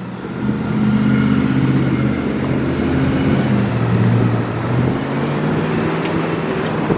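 A car in motion, engine and road noise with a low steady hum that drifts slightly up and down in pitch.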